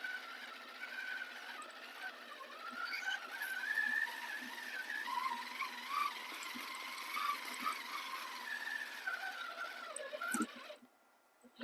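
Redcat Scout RC crawler's electric motor and gear drive whining as it drives, the whine rising and falling in pitch with the throttle over a steady hiss, stopping abruptly near the end.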